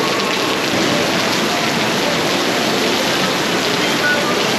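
Heavy rain pouring down in a steady, dense hiss, a tropical rainy-season downpour.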